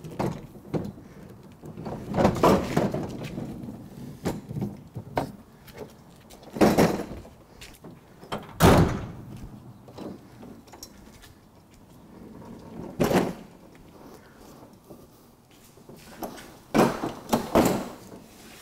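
SawStop Jobsite Pro table saw on its metal wheeled stand being slid out of a pickup bed and set down on its wheels: a series of heavy clunks with scraping and rattling between them, the loudest clunk about nine seconds in.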